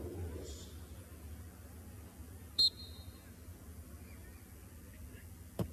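Low stadium background rumble, broken about halfway through by one short, sharp blast of a referee's whistle signalling that the free kick may be taken. A single thud comes near the end.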